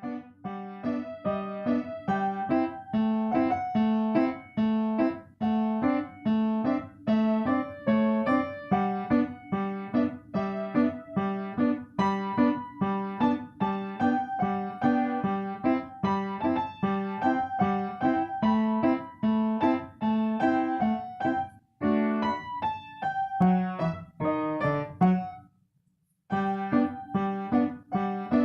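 Piano playing a melody over a steady, repeating bass accompaniment, with a brief break of about a second near the end before the playing resumes.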